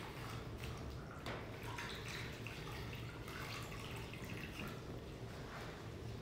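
Water splashing and dripping in a basin as gloved hands wet a cloth to rinse salt scrub off a foot, in small irregular splashes.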